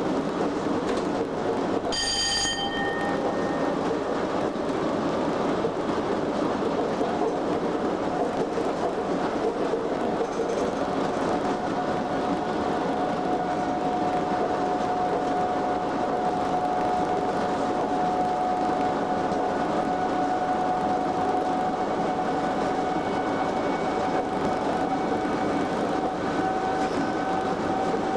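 Cab noise of Class 87 electric locomotive 87033 running at speed: a steady rumble of wheels on rail, heard from inside the cab. About two seconds in a short bell-like ringing tone sounds, and from about halfway a thin steady whine runs under the rumble.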